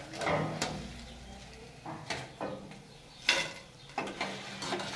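Long metal spoon clinking and scraping against a steel saucepan of frying oil as fried tortilla pieces are scooped out and dropped onto a clay platter: several separate clatters.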